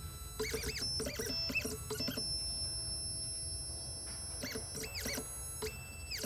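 Xhorse Condor Dolphin XP005 key cutting machine's motors driving the carriage during automatic clamp calibration. A series of short whines rises and falls in pitch, with a steady high whine held for about two seconds in the middle.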